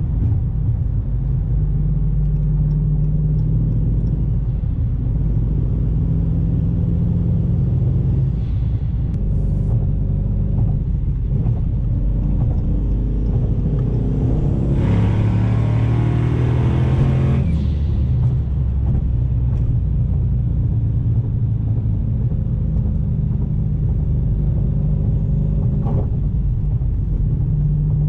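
Twin-turbo Dodge Challenger Hellcat's V8 droning with road noise inside the cabin at highway cruise. About fifteen seconds in, the engine note climbs under a brief burst of throttle with a hiss on top for two or three seconds, then settles back to cruise.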